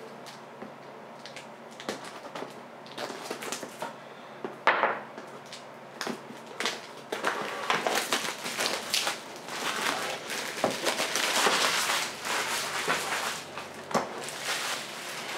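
Clear plastic shrink-wrap crinkling and tearing as it is pulled off a cardboard box, with scattered taps and knocks of the box being handled. The crinkling is densest in the second half.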